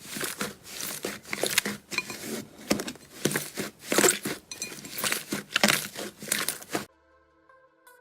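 Slime being squeezed and worked by hand, a run of crackling, crinkling pops in quick uneven clusters that cuts off abruptly about seven seconds in. Faint steady electronic tones follow.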